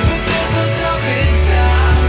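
Rock music with electric guitar, drums and heavy bass; a low bass note comes in about a second in.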